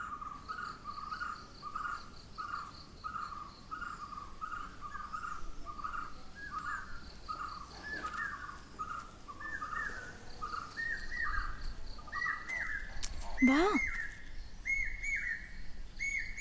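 A bird calling a long series of short, evenly repeated notes, about two to three a second, whose pitch climbs gradually. About three-quarters of the way through, one loud, brief sound swoops steeply down in pitch.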